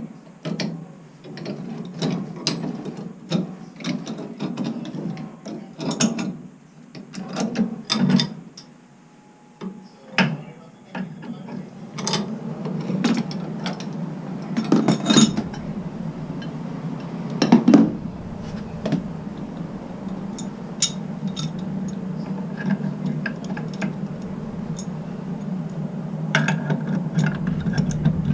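Hand tools working on metal plumbing fittings: irregular clicks, ratcheting and clanks, over a steady low hum that gets a little stronger about halfway through.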